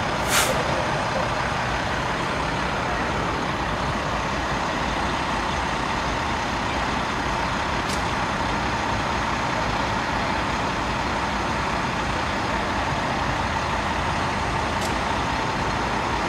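Steady, continuous rumble of idling heavy vehicles, with a faint steady tone running through it. A short sharp click comes about half a second in.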